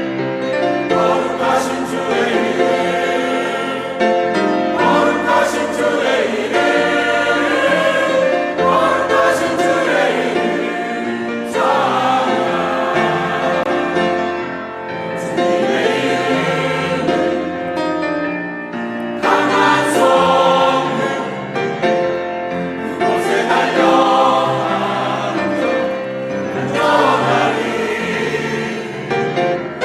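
Church choir singing a Korean praise song in several voice parts, with held, swelling phrases.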